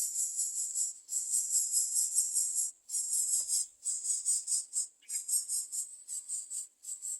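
Greater coucal nestlings begging: a high-pitched, rasping hiss in pulsing bursts of one to two seconds, broken by short pauses.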